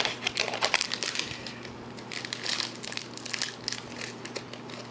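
Foil wrapper of a trading card pack crinkling in the hands as it is opened, a run of irregular crackles.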